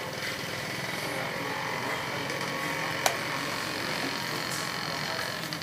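Street ambience: a steady hum of road traffic, with a single sharp click about three seconds in.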